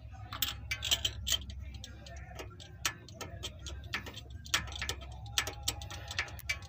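Irregular metallic clicks and ticks of a ratchet wrench working on the engine's spark plugs, over a low steady hum.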